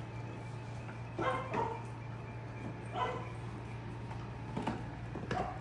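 A dog chewing a bone: two short whiny yelps, the first about a second in and the second about three seconds in, then a few sharp clicks of teeth gnawing on the bone near the end. A steady low hum runs underneath.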